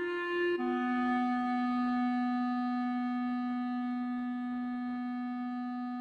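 Instrumental background music: a note is held for about half a second, then drops to one long lower note held steady.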